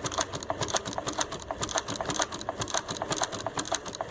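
Consew 339RB double-needle walking-foot industrial sewing machine running and stitching, its needle bar and feed clattering in a steady, even rhythm of several strokes a second.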